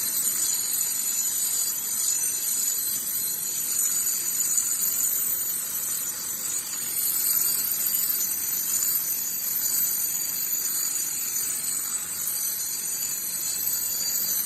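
DeWalt variable-speed angle grinder with a diamond grinding disc, grinding down the sagged leading edge of a concrete step to level it. A steady high-pitched whine over a gritty grinding noise, without a break.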